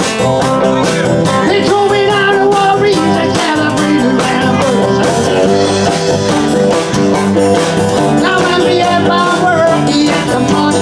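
Live band playing upbeat rock and roll, with guitar, a steady drum beat and singing.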